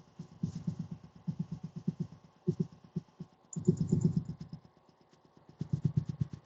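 Champion reciprocating air compressor pump running, a rapid chugging pulse that swells loud and fades back in spells about a second long.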